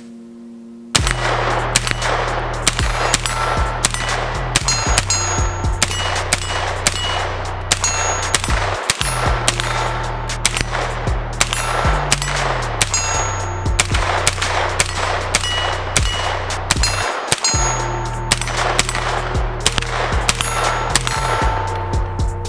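BattleArms Xiphos 9, a 9mm direct-blowback AR-style pistol, fired semi-auto in a long string of quick shots starting about a second in. Many shots are followed by the short ring of steel targets being hit.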